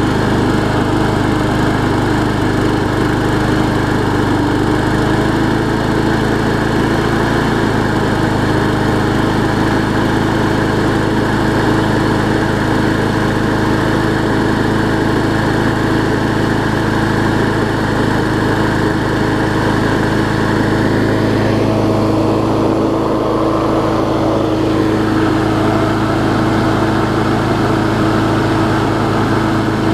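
Briggs & Stratton Quantum single-cylinder engine on a Murray push mower running steadily at a fixed, fast throttle on its newly fitted carburetor, after a cold start that caught on the first pull.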